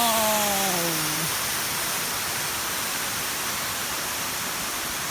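Waterfall rushing as a steady, even roar of falling water. A drawn-out falling vocal sound fades out about a second in.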